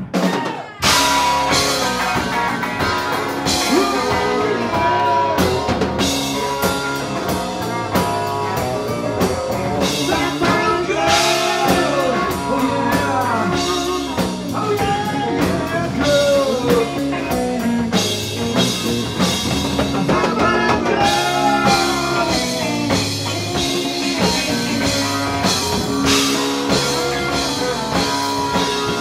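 Live rock band playing loud in a small bar: drum kit, electric guitars and bass guitar. The full band comes crashing in about a second in and plays on.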